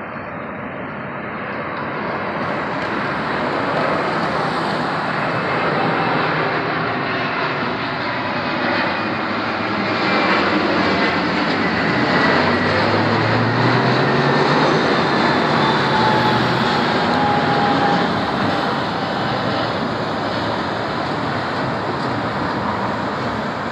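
Airbus A320-233 airliner with IAE V2500 turbofans flying low overhead on approach to land. Its engine noise builds steadily over the first several seconds, is loudest as the jet passes, then eases a little, with a faint whine sliding down in pitch as it goes by.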